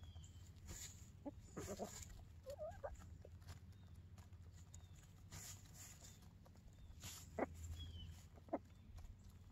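Chickens scratching and pecking in loose hay: faint rustling of straw and scattered pecking clicks. A soft warbling chicken call comes about two and a half seconds in, and two short, sharp calls come near the end.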